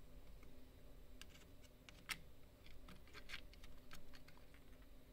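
A handful of faint, irregular light clicks of a thin metal tool tip tapping against the tiny plastic parts of an opened computer mouse's circuit board, as a small red part is being fitted back into its housing.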